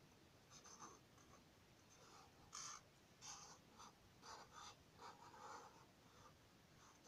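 Sharpie fine-point felt-tip marker drawing on paper: faint short strokes of the tip across the page, irregular, more than one a second, the loudest about two and a half seconds in.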